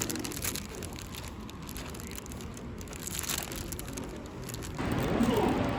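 Rustling and crinkling of paper or plastic being handled, with scattered light clicks. Near the end it cuts to a louder, steady background noise.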